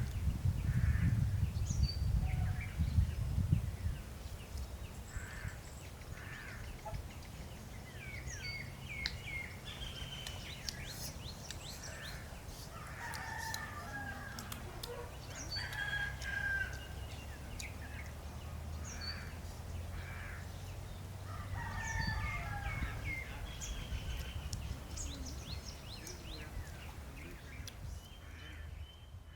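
A rooster crowing a few times, with small birds chirping throughout. A loud low rumble fills the first few seconds.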